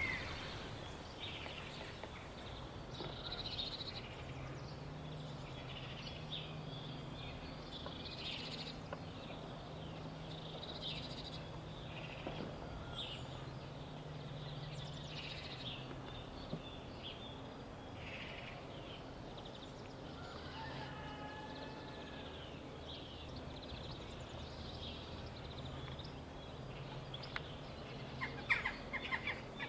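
Faint outdoor ambience of birds chirping and calling, short high notes scattered throughout, over a low steady hum. Near the end comes a louder run of sharp calls.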